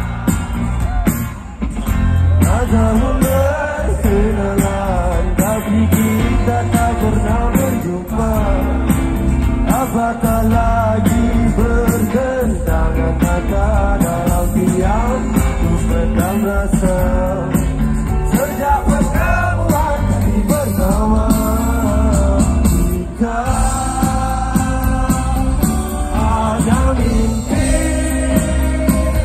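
Live rock band playing loudly through a festival PA, heard from within the crowd: heavy bass and drums under a bending melodic line.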